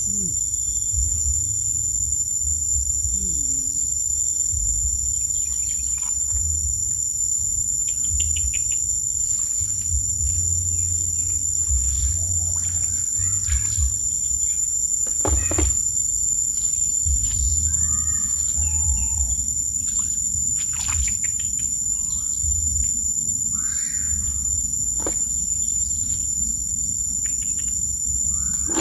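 Steady high-pitched drone of crickets or other insects, with a few bird chirps, a low rumble of wind on the microphone and scattered short knocks.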